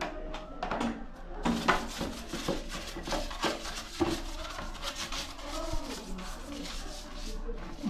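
Irregular rubbing and scraping strokes, uneven in spacing and strength.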